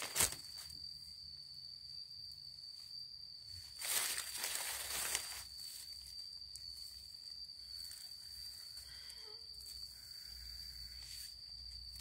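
A steady, high-pitched insect trill runs throughout. Dry leaves and undergrowth rustle as they are handled about four seconds in, with a short crackle at the very start.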